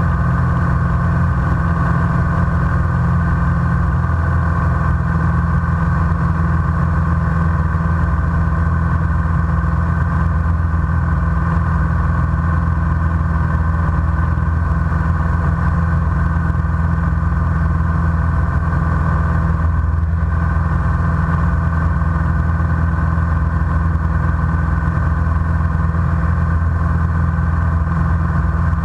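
Single-engine light aircraft's engine and propeller droning steadily in flight, heard inside the cockpit.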